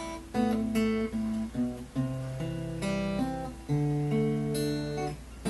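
A small-bodied acoustic guitar strummed chord by chord, each chord ringing briefly before the next, in a simple slow progression. A steady low hum runs underneath.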